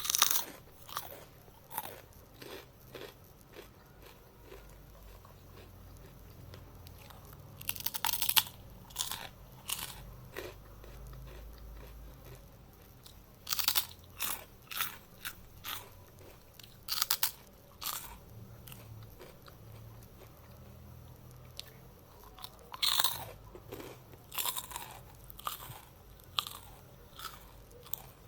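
Close-miked eating of a crunchy snack: crisp bites and chewing crunches in irregular clusters, with quieter pauses between mouthfuls.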